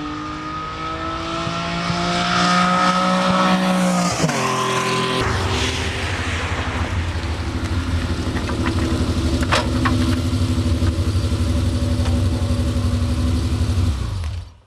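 A car engine running under load, its pitch climbing slowly and then dropping sharply about four seconds in, after which it settles into a steady deep rumble. The sound cuts off suddenly near the end.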